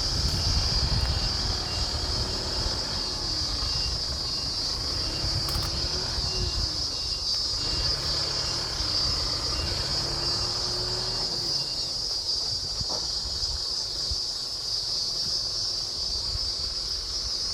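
A truck engine running at low speed, a low rumble with a tone that slowly rises and falls. Loud steady insect chirring runs over it throughout.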